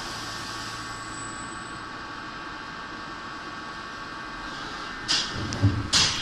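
CNC milling machine cutting a plastic part under flood coolant: a steady whine with several fixed tones over the hiss of the coolant spray. About five seconds in, a few sudden loud knocks.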